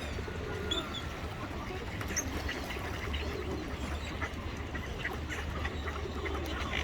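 Ducks and other waterbirds calling in short, scattered calls over a steady low rumble.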